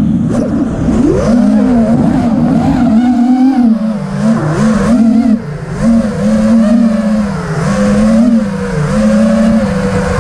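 FPV racing quadcopter's Emax RS2205 2300kv brushless motors spinning HQ 5x4x3 props: a loud whine that rises and falls in pitch every second or so as the throttle changes in flight.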